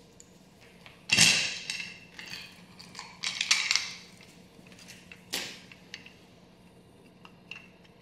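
Small hard plastic and metal parts being handled: the amber plastic marker light lens, its screws and a screwdriver. A clatter about a second in, another cluster near four seconds, and a sharp click a little after five seconds.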